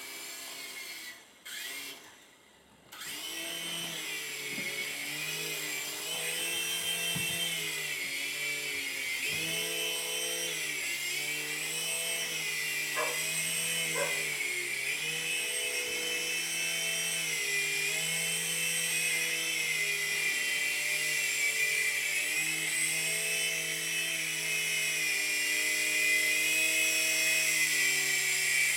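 Small electric toy helicopter's motor and rotor whining, its pitch wavering up and down as it flies. It cuts out briefly near the start, comes back about three seconds in, and grows slightly louder towards the end.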